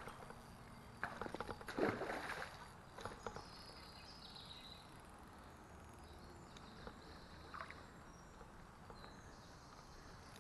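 Water splashing in two short bouts in the first few seconds as a hooked brown trout thrashes at the surface, then a low steady murmur of river water.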